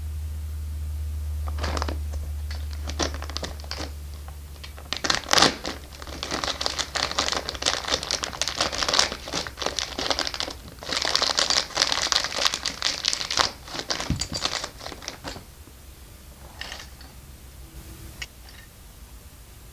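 Plastic bag of LEGO parts crinkling as it is handled and rummaged through, with scattered sharp clicks. The crinkling is densest through the middle, and a low hum fades out over the first few seconds.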